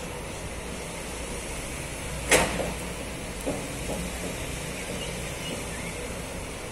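Steady outdoor background rumble with one sharp knock about two seconds in, followed by a couple of fainter taps.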